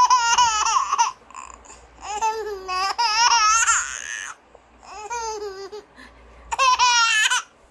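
A baby laughing in four high-pitched, wavering bursts with short pauses between them.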